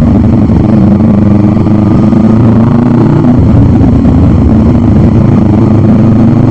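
Sport motorcycle's engine running steadily at cruising speed, heard from the rider's own bike.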